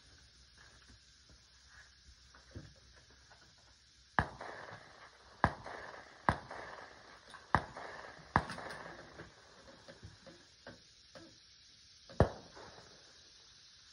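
Gunshots on an outdoor range: five shots about a second apart, then a single shot a few seconds later, each with a short echoing tail.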